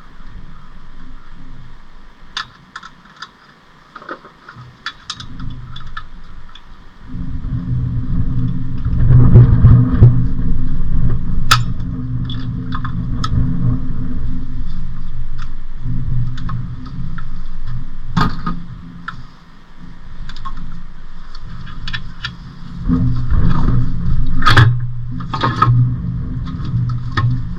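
Light metallic clinks and knocks of tools and parts being handled. About seven seconds in, a steady low mechanical drone starts; it drops away briefly around twenty seconds, then comes back.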